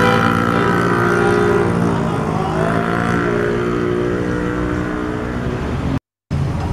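A motor vehicle's engine running at a steady pitch.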